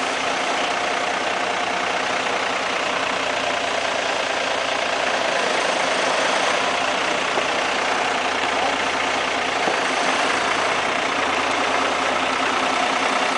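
Mercedes-Benz Unimog's diesel engine running steadily at low speed while the truck creeps slowly.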